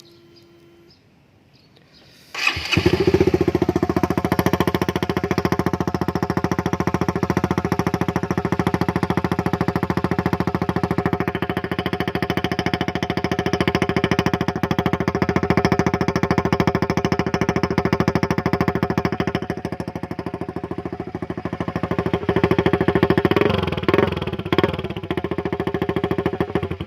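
Honda Sonic 150R's single-cylinder four-stroke engine breathing through an aftermarket Akrapovic Evo GP exhaust, starting about two seconds in and then idling steadily, with a few quick revs near the end.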